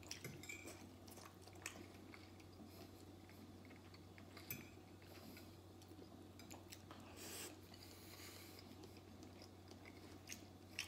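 Faint eating sounds: a metal fork clinking against a ceramic plate a few times, with soft chewing between, over a steady low hum.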